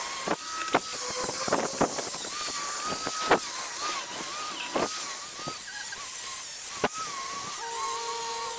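Makita angle grinder with a wire cup brush scouring rust off a steel vise handle: a harsh, high hiss over the motor's whine, which wavers as the brush is pressed on, with sharp snaps where the wires catch. Near the end the whine turns steady as the load comes off.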